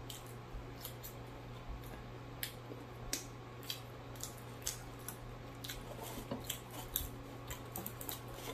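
Close-up mouth sounds of chewing fried catfish: wet clicks and lip smacks at irregular spacing, a few a second, over a steady low hum.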